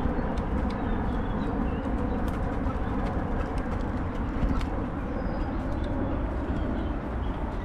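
Motor scooter riding along: a steady rumble of engine and wind, with faint bird chirps and a few light clicks over it.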